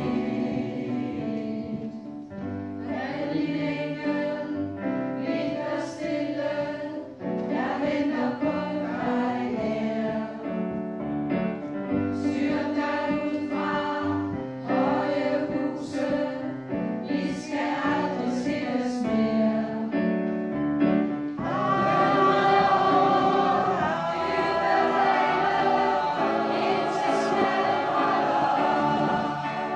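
Background music: a choir singing, growing louder about two-thirds of the way through.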